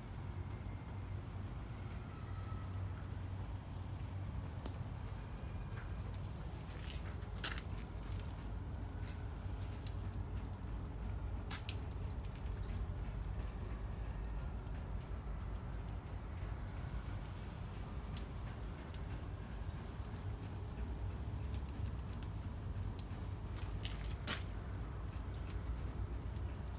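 Snowmelt dripping off a roof edge that overshoots a too-short eavestrough: irregular sharp drips and taps over a steady low rumble.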